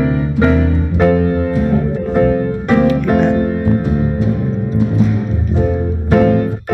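Instrumental music: notes and chords, struck about twice a second, on a plucked or keyboard instrument.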